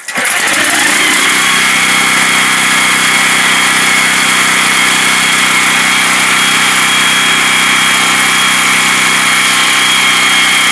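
Honda GX390 13 hp single-cylinder petrol engine on a pressure washer firing up and coming up to speed, then running steadily and loudly as it drives the WS202 plunger pump.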